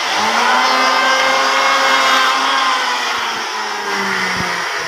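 Handheld electric wood planer running with a steady motor whine, its pitch sagging slightly about three and a half seconds in.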